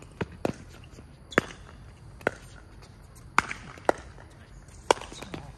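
Pickleball paddles hitting a plastic pickleball back and forth in a doubles rally: seven sharp pops, spaced half a second to a second apart.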